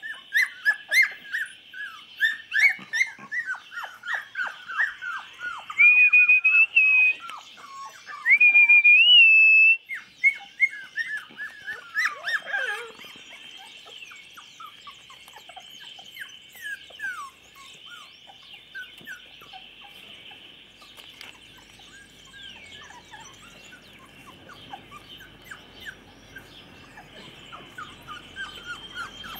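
A litter of 24-day-old chocolate Labrador puppies squeaking and whimpering in many short cries that fall in pitch, busy in the first dozen seconds and sparser after. About 6 and 8 seconds in come two long, steady high-pitched tones, the loudest sounds here.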